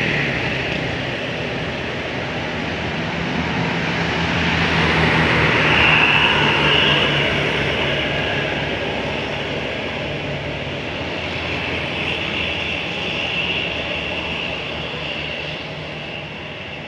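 Heavy bus diesel engine running under load on a climb. It grows louder to about six seconds in, then slowly fades.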